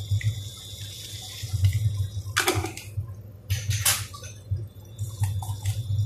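Vegetables cooking in a little water in a stainless steel wok over high heat: a steady bubbling sizzle over a low rumble, with a few louder hissing bursts.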